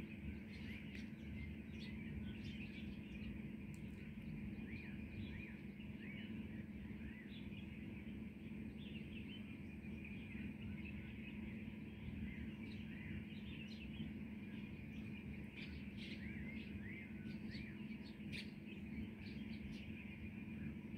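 Small birds chirping and twittering: many short, high calls from several birds, over a steady low background hum.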